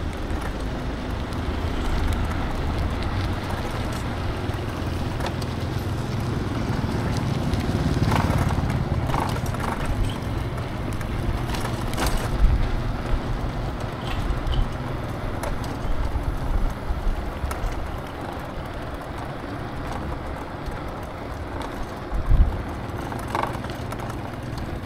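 Wind and road noise of an electric scooter ride through traffic: a steady low rumble with a few short knocks and rattles.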